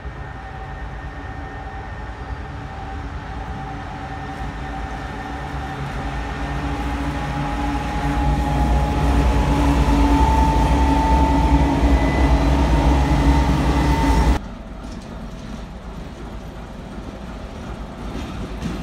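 Twin-section mainline diesel locomotive, which the spotter takes for a 2TE10, approaching and passing. Its diesel engines drone with several steady tones that grow louder to a peak. About two-thirds of the way through the sound cuts off abruptly, leaving a quieter, plainer background noise.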